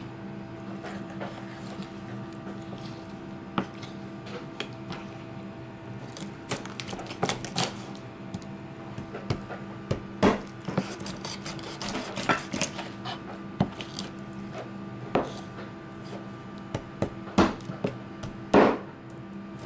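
Chef's knife cutting raw fish on a plastic cutting board: irregular knocks and taps of the blade striking the board, more frequent in the second half, with the loudest knock near the end. A steady low hum runs underneath.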